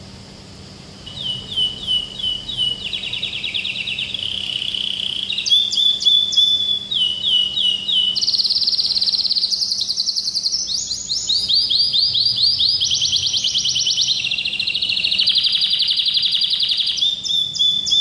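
Domestic canary singing a long song of rapid repeated-note trills, switching to a new phrase every second or two. The song starts about a second in.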